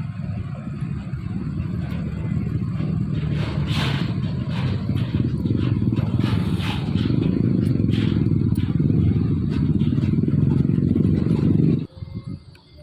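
Heavy truck engine running under load with a low rumble that grows louder, with scattered clanks and rattles on top; it cuts off suddenly near the end.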